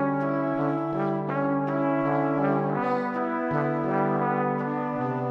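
Background music: slow, held notes that move to new pitches every second or two.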